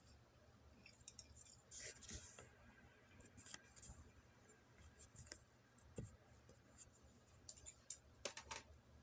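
Faint, scattered small clicks and smacks of a person eating with wooden chopsticks, chewing between bites.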